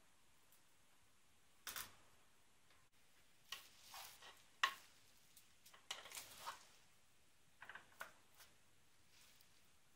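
Faint handling sounds from a clay donabe rice pot: a single click as its lid comes off about two seconds in, then a rice paddle cutting through cooked rice, with soft taps and scrapes against the pot in short clusters.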